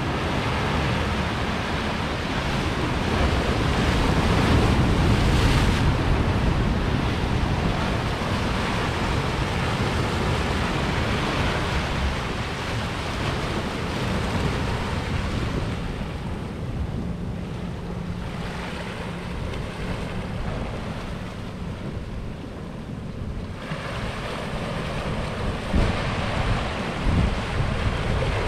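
Ocean surf churning and washing against the jetty's rocks, with wind rumbling on the microphone. The wash is loudest a few seconds in and eases off for a while in the second half.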